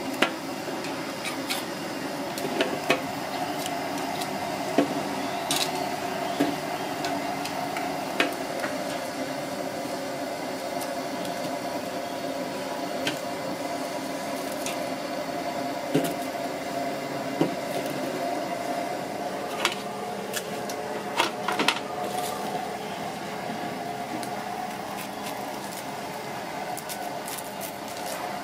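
Metal tongs clicking against a metal grill grate as onions roasting on it are turned: a dozen or so sharp, separate clicks, bunched around the middle, over a steady low hum and hiss.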